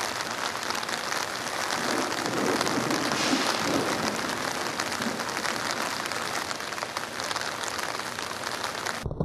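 Heavy rain falling steadily in a thunderstorm, a dense patter of many drops, swelling slightly between about two and four seconds in. Just before the end it cuts off suddenly.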